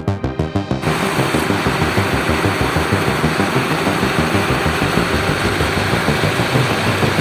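An engine running steadily with a fast, even pulse, and a hiss that comes in about a second in.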